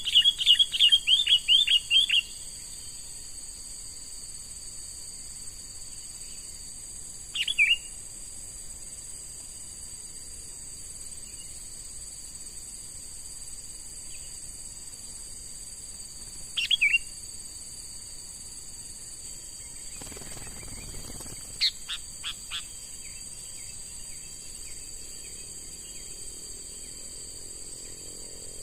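Sooty-headed bulbul calling: a quick string of about ten chirps at the start, two brief calls in the middle, and a short series of sharp notes about two-thirds through. A steady high insect drone runs underneath.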